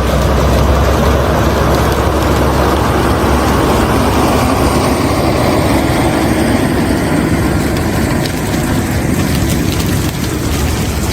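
A heavy machine's engine running steadily and loudly, with a deep rumble under a broad mechanical noise.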